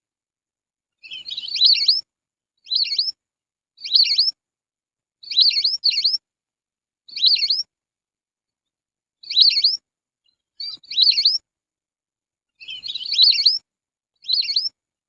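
Lesser whistling duck (belibis) calling: short, high whistled calls of two or three quick rising notes, repeated about every one to two seconds with a longer pause near the middle. This is a recorded call used as a lure.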